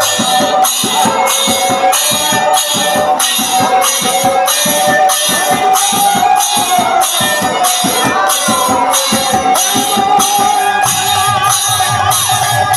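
Bengali kirtan ensemble playing in ektala: khol drums and hand cymbals keep a steady beat of about two strokes a second, under a sustained harmonium melody with a clarinet weaving above it.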